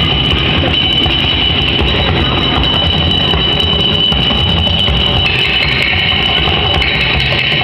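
Percussion played on kitchen utensils: steel tins, pots and a steel plate tapped and struck by hand. A steady high-pitched ringing tone runs under the playing.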